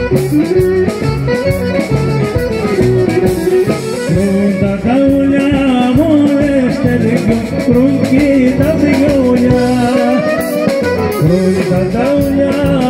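Live traditional Greek folk dance music for a circle dance: a singing voice and melody over plucked-string accompaniment with a steady beat.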